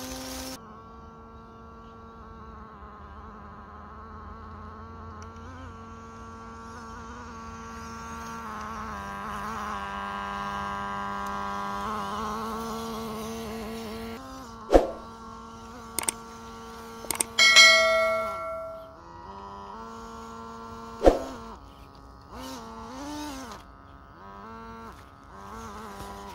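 Background music of held, buzzing tones that shift pitch in steps, with a few sharp hits and a bell-like ringing tone about two thirds of the way in.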